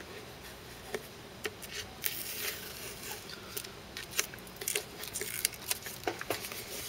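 Scattered small clicks and crinkles of trading-card packaging being handled and opened, with a quicker run of clicks in the middle.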